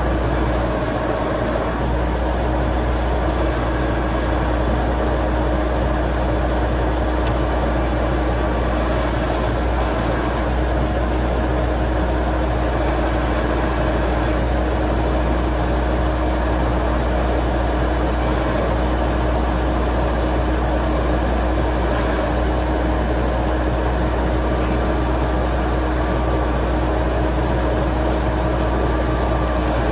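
John Deere 555 crawler loader's diesel engine running steadily at an even speed, a deep rumble with a constant hum and no revving.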